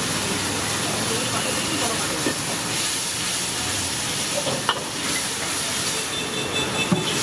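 Sauce sizzling and steaming in a hot wok, a steady hiss, with a couple of sharp clicks of the metal ladle against the wok near the middle and the end.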